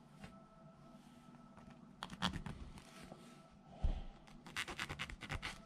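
Small file scraping the rough edges and stray strands off a 3D-printed wood-fill PLA game piece: scattered scratching strokes, a single knock a little before four seconds in, then a quick run of short rasping strokes near the end.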